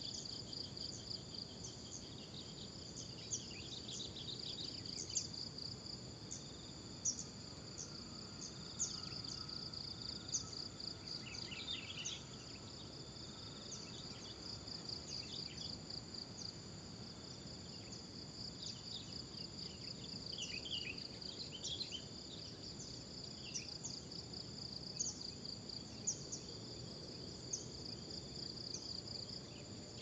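Steady, high-pitched, pulsing chorus of insects such as crickets or cicadas, with short clusters of bird chirps breaking in several times.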